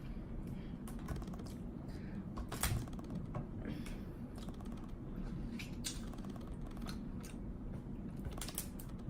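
Crab legs being cracked open and eaten by hand: an irregular run of sharp clicks and cracks of shell, the loudest about a third of the way in.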